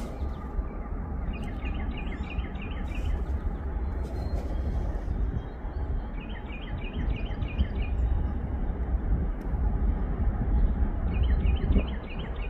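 A songbird sings three short phrases of quick repeated chirps, a few seconds apart, over a steady low rumble.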